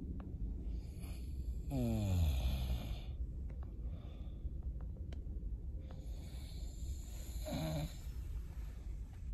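A person snoring in sleep over a steady low rumble, with one long sound falling in pitch about two seconds in and a short pitched snore near the end.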